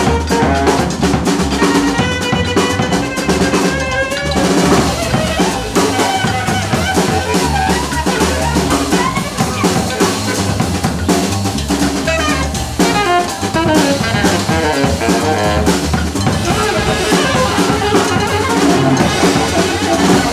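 Live jazz band playing: the drum kit is prominent, with rimshots, snare and bass drum, over an acoustic bass line, and a wind instrument carries wavering melody lines on top.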